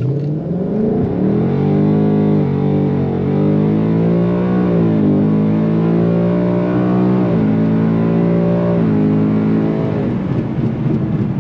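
Ford Mustang GT's 5.0 L V8 at full throttle on a hard launch, its pitch climbing through each gear and dropping at about four upshifts, then backing off about ten seconds in. The rear tires spin on takeoff and again at the shift into second gear.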